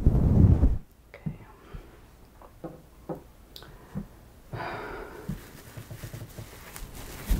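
ASMR triggers: a plastic hairbrush's bristles swept over the microphone, giving a loud low rubbing for just under a second. Then come a few light clicks and knocks as objects are handled, a short rustle, and soft scrunching of a knitted piece squeezed in the hands.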